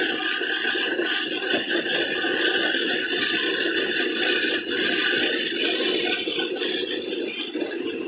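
Electric grain mill grinding malted corn, running steadily with the dry kernels rattling through the grinding plates.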